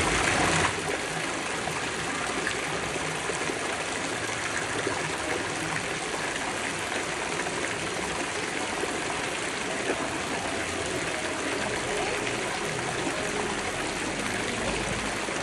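Thin streams of water running steadily from the metal spouts of a stone public fountain and splashing into its wet stone basin.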